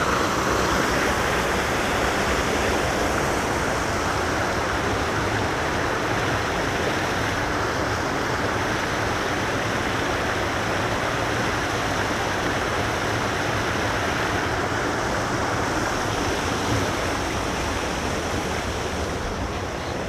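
Creek water running high and fast after a hurricane, rushing over rocks along a stone gabion wall: a steady, loud rush that eases a little near the end.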